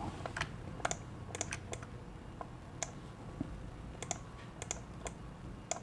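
Irregular light clicking of a computer being worked, a dozen or more separate clicks over a faint low hum.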